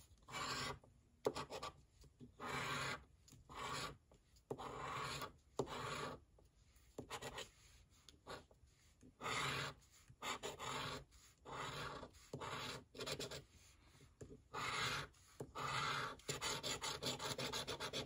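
A coin scratching the coating off a scratch-off lottery ticket, in repeated short rasping strokes with brief pauses between them, about one stroke a second.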